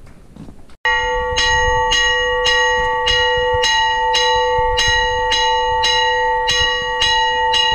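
A single church bell rung quickly, struck about twice a second so that it rings on between strokes. The ringing starts suddenly about a second in.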